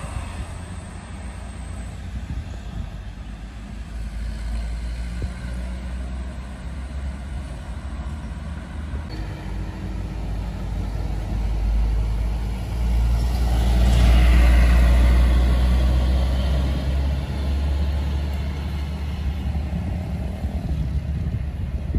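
Road vehicles passing: a low engine rumble with tyre noise that swells to its loudest about two-thirds of the way through as a vehicle goes by close, then fades off.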